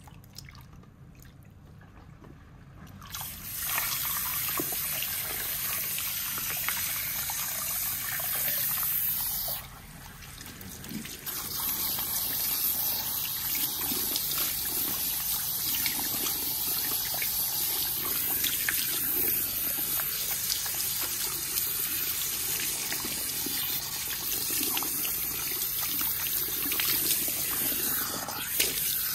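Salon shampoo-bowl hand shower spraying water through wet hair, the water splashing into the basin as the hair is rinsed. The spray starts about three seconds in, drops away for a moment around ten seconds, then runs steadily again.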